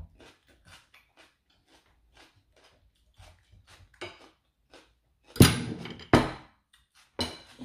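Close-up chewing with small wet mouth clicks, then dishes knocking onto a table: two loud knocks a little after five and six seconds in, and another near the end.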